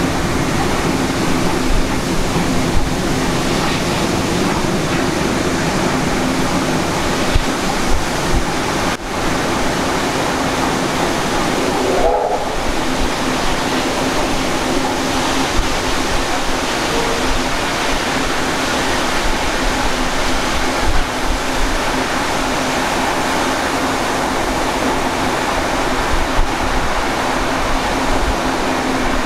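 A moving train carriage: a steady rush of wind and wheel noise with a low steady hum. About twelve seconds in there is a brief wavering squeal.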